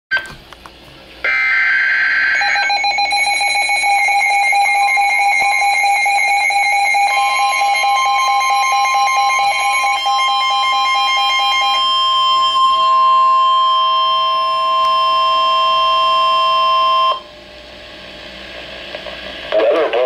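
NOAA weather radio alert on a Midland weather radio: a short digital data burst about a second in, then a rapidly pulsing alarm tone joined by a steady warning tone near 1 kHz, all stopping abruptly about 17 seconds in. This signals an incoming severe thunderstorm warning, and a radio voice begins reading it near the end.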